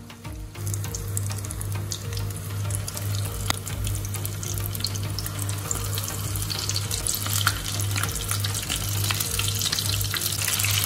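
Batter-coated prawns deep-frying in hot oil in a kadhai: a dense sizzle and crackle of bubbling oil that swells about half a second in and grows busier toward the end, over background music.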